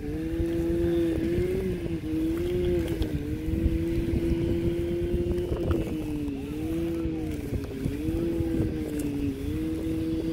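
A person making an engine noise with their voice, a long held hum that wavers and dips in pitch a few times, as a hand-pushed plastic toy front loader scoops sand.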